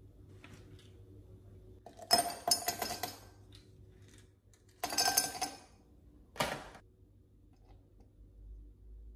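Ice cubes tipped from a plastic bag clinking and clattering into an empty glass tumbler, in two bursts about three seconds apart, followed by one short knock.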